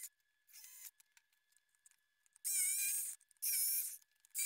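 Power tools cutting into MDF: four short bursts of high-pitched whining, starting about two and a half seconds in.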